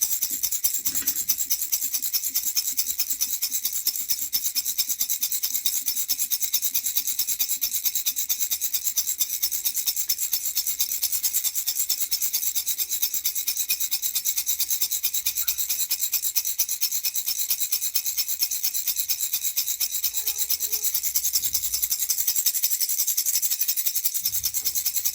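Baby rattle shaken fast and without a break, its beads rattling in a dense, even, hissing rhythm.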